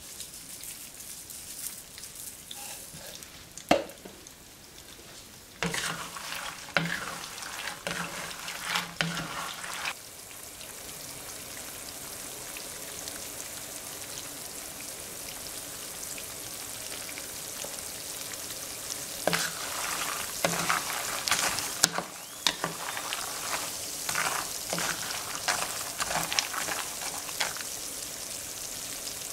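Peanuts and garlic cloves frying in oil in a pan with a steady sizzle. Twice, in the first third and again near the end, a spatula stirs them, with a clatter of nuts and scraping on the pan.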